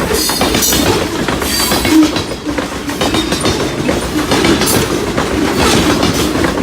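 Train cars rolling past on the track: a steady, loud rumble of wheels on rail, with a clickety-clack of wheels crossing rail joints about once a second.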